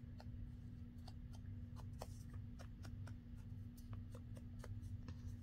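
Faint scratchy rubbing and small clicks of an ink pad being dabbed and dragged along the edges of a paper tag to ink them. A steady low hum runs underneath.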